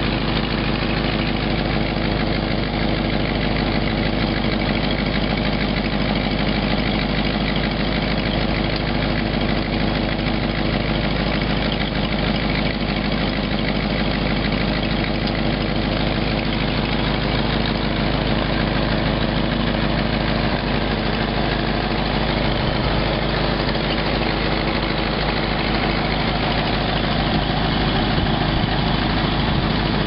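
A 1952 Packard's straight-eight engine idling steadily, heard close to the exhaust pipe joint under the car. The exhaust system has leaks.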